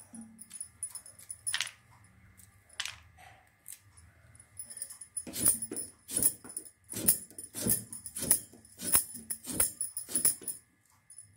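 Metal bangles clinking and pieces of grapefruit dropping onto a steel plate as the fruit is sliced against a curved cutting blade. A few scattered clinks give way, about five seconds in, to a quicker run of sharp clinks.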